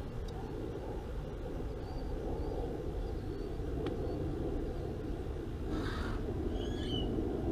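Steady low outdoor background rumble, with a brief scrape about six seconds in and a few short high chirps just after it.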